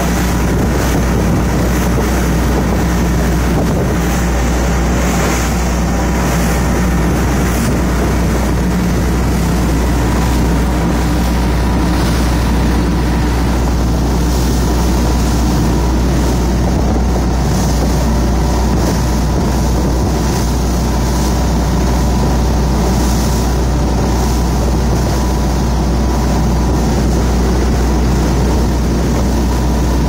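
Motorboat running at speed through choppy lake water: a steady engine drone under the rush and hiss of water spraying off the hull. Wind buffets the microphone.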